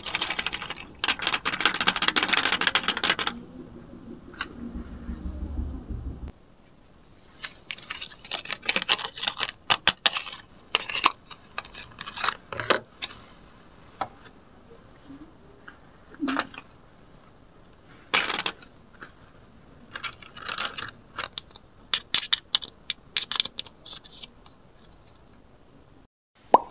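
Toy food pieces clattering in a plastic basket for about three seconds. Then a long run of separate light plastic clicks and taps as the pieces and a plastic plate are picked up and set down.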